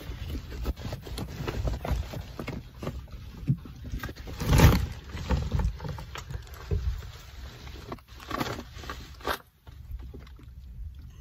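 Close handling and body-movement noise from someone lying under a shed floor: clothing and gear rustling, with light knocks and scrapes over a low rumble. One louder rustling knock comes about halfway through, and a few more rustles come near the end.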